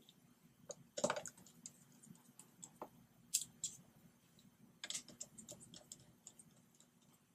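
Faint, irregular clicks and light taps of a small hand tool and tiny parts against the open MacBook Pro's logic board and metal case. A cluster comes about a second in and another near five seconds.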